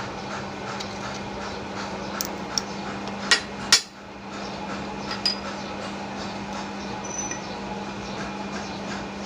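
A hammer striking metal: a few sharp blows between about two and five and a half seconds in, the two loudest close together about three and a half seconds in. Under them runs a steady low hum.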